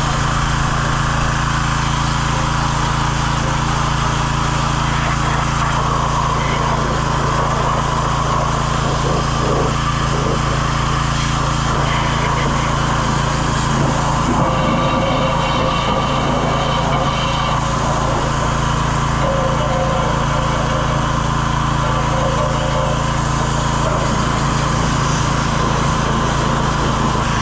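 Pressure washer running steadily, its small engine humming under the hiss of the spray as grease is washed off machinery.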